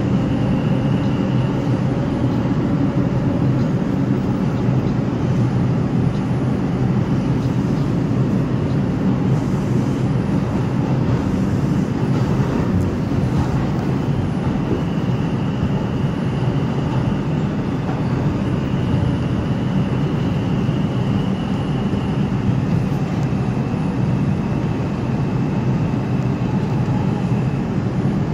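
A New York City subway 4 train running at speed through a tunnel, heard from inside the car: a loud, steady rumble of wheels on rail, with a faint high whine that comes and goes.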